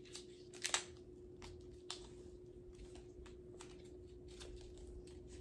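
Small clicks and ticks of a cosmetic pencil being handled and worked out of its plastic packaging, with two sharper clicks a little under a second in. A steady faint hum runs underneath.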